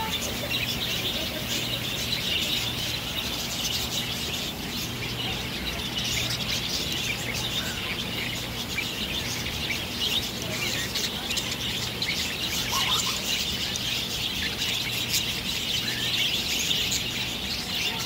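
A flock of budgerigars chattering and chirping continuously, many birds calling over one another.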